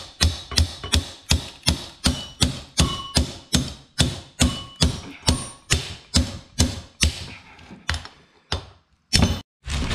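Metal-on-metal hammer blows on a Toyota Prius electric power steering column being knocked apart, about three a second, each strike ringing briefly. The blows grow softer after about five seconds and end in a few separate knocks.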